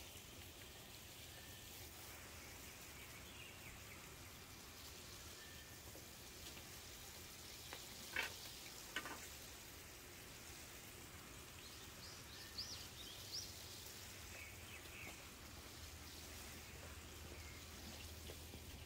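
Soft, steady hiss of water spraying from a hose watering wand onto trays of hydrangea cuttings, with a couple of faint clicks about eight and nine seconds in.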